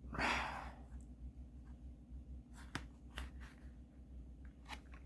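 Quiet handling of a tarot deck: a brief soft rush near the start, then a few light clicks and taps, over a low steady hum.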